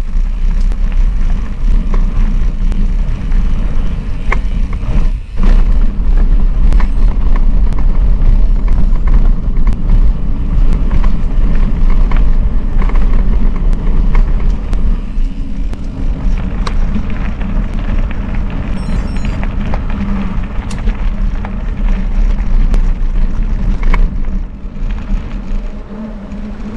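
Mountain bike being ridden over a rough trail: a steady low rumble of wind and tyre noise with frequent rattling clicks from the bike, with a brief drop about five seconds in.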